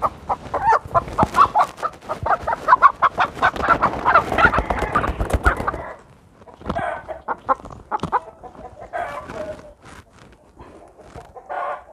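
Chicken squawking and cackling in alarm as it is caught and held by the legs, loud rapid calls with wings flapping for about six seconds, then quieter, scattered clucks.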